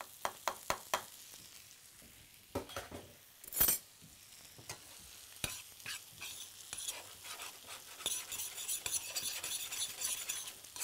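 Food frying in a hot pan, with a metal utensil clinking and knocking against the pan several times in the first few seconds and a louder clatter about three and a half seconds in; the sizzle then builds and stays strong over the last few seconds.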